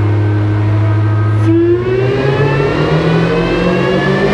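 Chevrolet Camaro's engine running on a chassis dynamometer, holding a steady speed, then about one and a half seconds in starting a pull, its pitch rising steadily as it accelerates.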